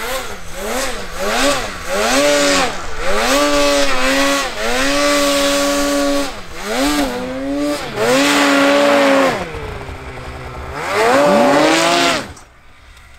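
Mountain snowmobile engine revving up and down over and over, held high in stretches, as the sled claws its way up a steep slope in deep powder. The engine sound drops away suddenly near the end.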